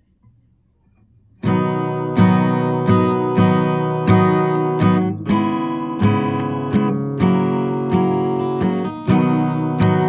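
Acoustic guitar strumming chords in a steady rhythm. It starts about a second and a half in, after near silence, and has a couple of brief breaks between chords.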